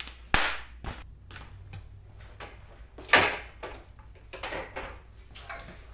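Foam packaging wrap rustling as a part is unwrapped by hand, with a sharp click just after the start and several rustling swishes, the loudest about three seconds in.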